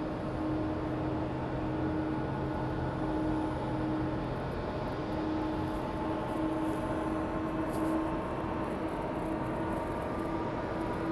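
Jet airliner engines running steadily at low power, a constant drone with a steady hum running through it.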